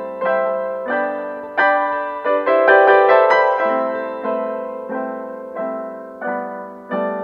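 Background piano music: gentle chords struck about once a second, each fading away before the next.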